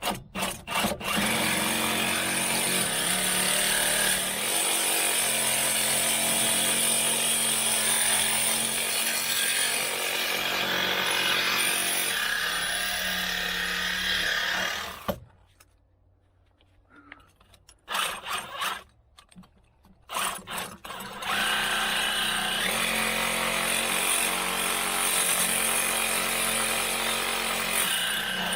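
A handheld power tool running in two long stretches, the first about 14 seconds and the second about 7 seconds, with a few short bursts in the pause between them.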